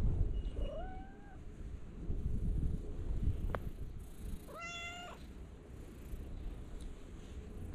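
A stray cat meowing twice: a meow that rises in pitch and then holds, about half a second in, and a second, shorter one about four and a half seconds in, over low rumbling noise.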